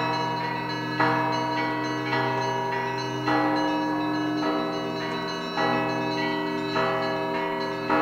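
Russian Orthodox bell ringing (zvon) from a monastery belfry: several bells of different pitches struck in a rhythmic pattern, a new stroke about once a second, each ringing on over a deep sustained hum from the big bell.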